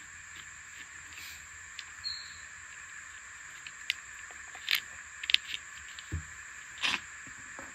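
Scattered light clicks, taps and scrapes of a screwdriver and small metal parts being worked at the end of an aluminium blind rail, with a few sharper knocks between about four and seven seconds in. Behind them runs a steady high chirring of insects.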